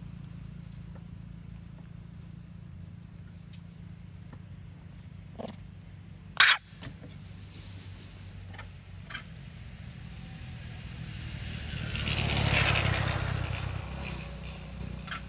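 A low steady hum, a sharp click about six seconds in, and a passing vehicle's noise that swells and fades about twelve seconds in.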